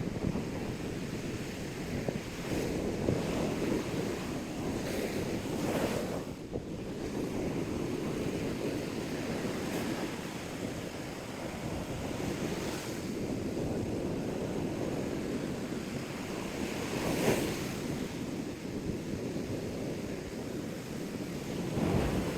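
Surf washing steadily onto the beach, with a few louder surges, and wind rumbling on the microphone.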